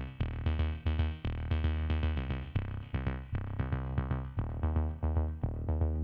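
Electronic background music: synthesizer notes over a steady drum-machine beat with heavy bass.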